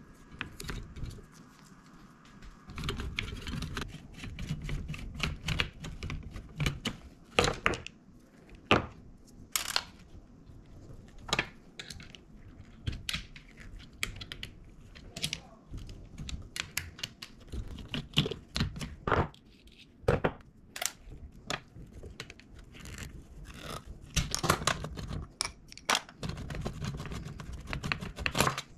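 Cylindrical Headway LiFePO4 cells being twisted and worked out of tight plastic cell holders by hand, with plastic scraping and creaking. Irregular sharp clicks and knocks come as cells pop free and are set down on a stone countertop.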